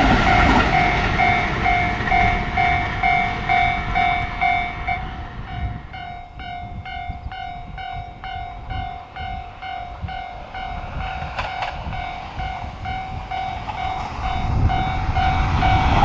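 Japanese level-crossing warning bell ringing steadily at about two strikes a second. A local electric train's rumble fades over the first few seconds, and near the end a limited-express electric train's rumble builds as it reaches the crossing.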